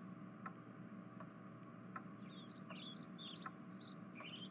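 Faint room ambience: a clock ticking about once every three-quarters of a second over a low steady hum, with birds chirping in a quick run of high notes from about two seconds in.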